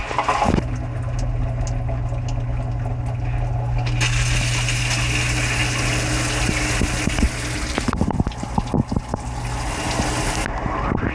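Dishwasher running, heard from inside the tub: the wash pump hums steadily while water sprays and splashes against the walls, with scattered droplet ticks. The spray hiss gets louder about four seconds in and falls away shortly before the end; the pump hum drops out around the middle.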